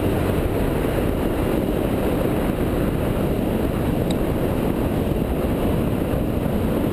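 Motorcycle riding along a gravel road, picked up by a helmet-mounted camera as a steady rumble of engine and wind noise.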